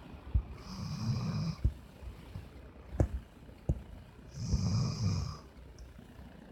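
German Shepherd dog snoring in its sleep: two snores about three and a half seconds apart, each a low rumble lasting close to a second, with a few sharp clicks in between.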